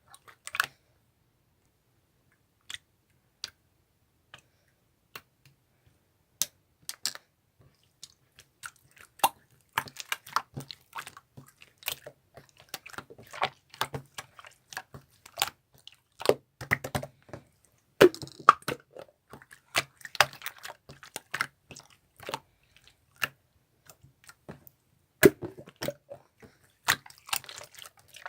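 Purple mixed slime being worked by hand, giving sharp sticky pops and crackling clicks. The pops are sparse at first and come thick and irregular from about nine seconds in.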